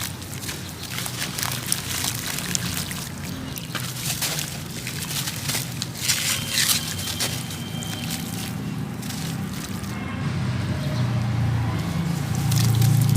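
Chunks of sand-cement crumbling into water: a run of small crackles and clicks with sloshing and trickling water.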